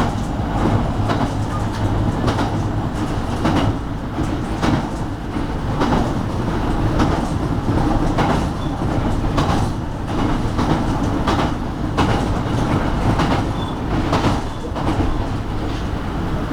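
JR Kyushu 815 series electric train running along the line, heard from on board: a steady rumble with the wheels clicking over rail joints about once a second.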